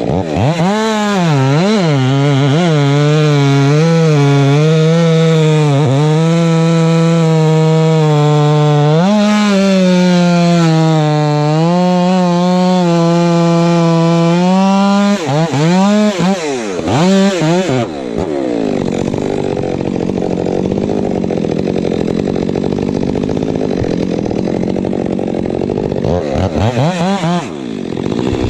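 Stihl MS 462 two-stroke chainsaw with a Westcoast Saw Bark Box dual-port muffler, cutting through a log at full throttle for about fifteen seconds, its pitch wavering under load. The throttle is then blipped and the saw drops to a lower, uneven idle, before revving up again near the end.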